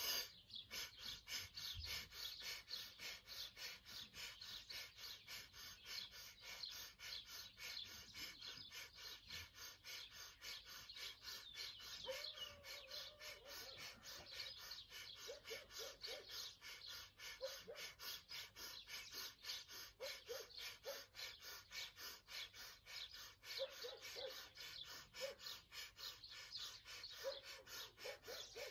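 Breath of fire: rapid, evenly paced, forceful breathing through the nose, pumped from the abdomen, faint and steady. Birds chirp in the background.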